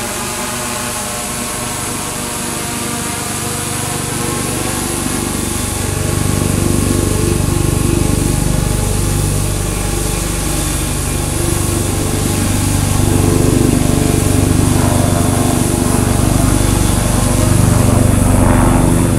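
Tarot T960 hexacopter's electric motors and propellers humming steadily in flight, heard first from the ground; about five seconds in the sound becomes louder and deeper, picked up by a camera mounted on the craft right under the spinning propellers.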